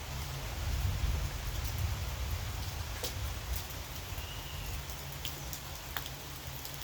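Steady rain falling, with scattered drops ticking sharply on a surface over a low rumble.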